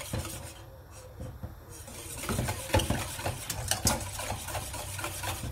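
A utensil stirring sauce in a saucepan, knocking and scraping against the pot in a run of irregular clinks from about two seconds in, over a steady low hum.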